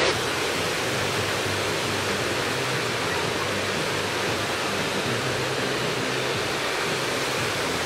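Steady, even rush of running water from the pool, with a faint low hum beneath it.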